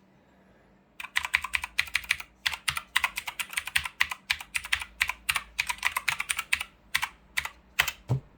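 Typing on a Keychron C2 mechanical keyboard with blue switches: fast runs of sharp, high clicking keystrokes in bursts with short pauses, starting about a second in.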